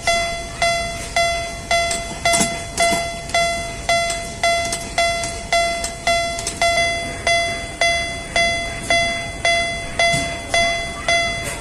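Japanese mini railroad crossing warning bell ringing its 'kan-kan' alarm, about two even, ringing strikes a second.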